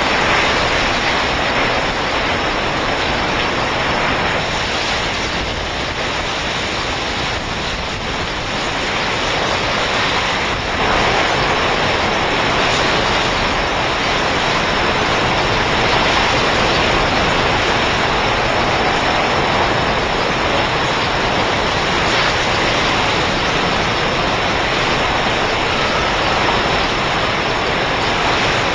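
Hurricane-force wind blowing hard and steadily, a loud rushing noise with no break, swelling slightly about ten seconds in.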